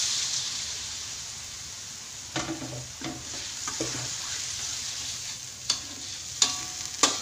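Chilli paste sizzling in hot oil in a wok just after a little water is added, the hiss dying away over the first couple of seconds. From about two seconds in, a metal spatula stirs and scrapes the wok with several sharp clinks.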